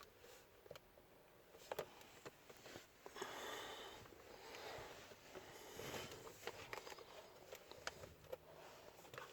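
Faint scattered clicks and soft rustling, with two short stretches of breathy noise.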